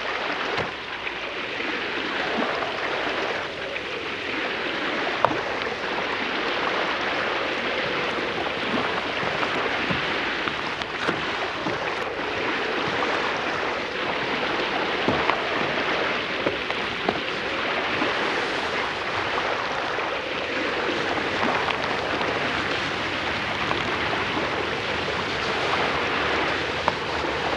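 Steady sea surf and wind along a pebbly shore, with a few small scattered clicks.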